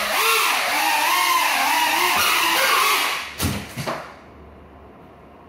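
Small FPV quadcopter's electric motors spinning broken propellers, a whine whose pitch wavers up and down, cutting out about three seconds in. Two knocks follow just after.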